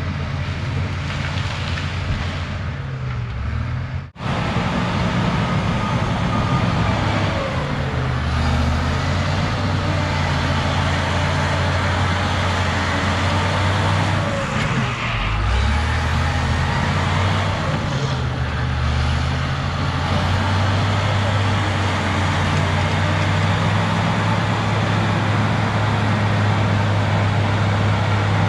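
Cat D6H bulldozer's diesel engine working steadily, its pitch dipping and rising a few times as the load changes. The sound cuts out for an instant about four seconds in.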